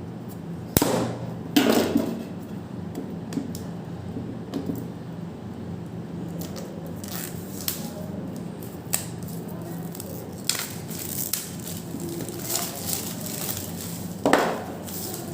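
Cardboard earphone retail box being opened and handled: scattered clicks, scrapes and rustles of packaging, with sharper knocks about a second in and near the end, over a steady low hum.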